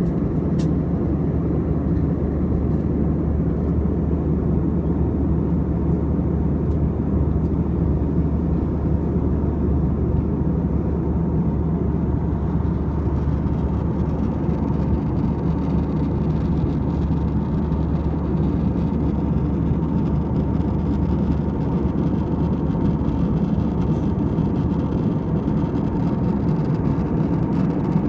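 Steady cabin drone of a jet airliner in flight, heard from a window seat: an even, low rumble of engines and airflow with a faint steady hum above it.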